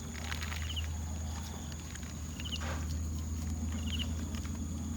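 Short, high double chirps from a small animal, repeating every second or two, over a steady low hum and a constant high-pitched tone.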